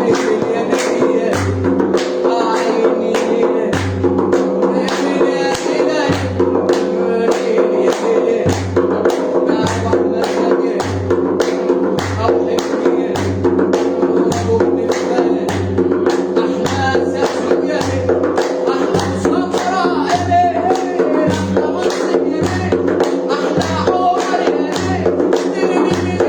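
Instrumental Egyptian popular music between sung verses: a held keyboard chord over a steady low beat, with fast, even hand-percussion strokes.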